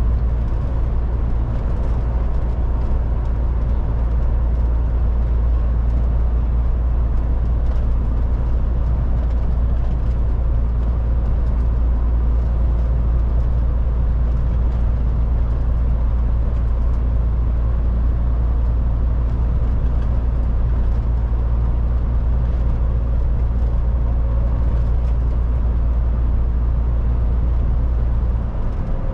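MAN TGX 18.440 lorry driving along at steady speed: a continuous deep engine drone with road and tyre noise. The low rumble eases slightly near the end.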